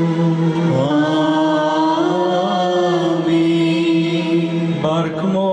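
Syro-Malankara Catholic liturgical chant, sung in long held notes that slide from one pitch to the next, with a short break near the end.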